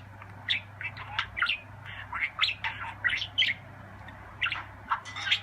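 Pet parakeet chirping: quick clusters of short, sharp chirps and squawks, several a second, with brief pauses between runs.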